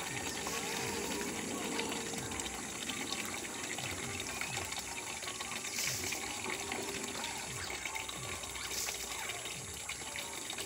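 Steady running and splashing of water as plants are watered by hand from a bucket and can, with a thin steady high tone behind it.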